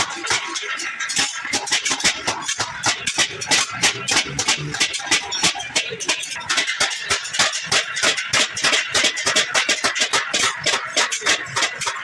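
Quick, repeated hammer strikes on a galvanized sheet-steel drum top, about four a second, as the rim of its round hole is worked.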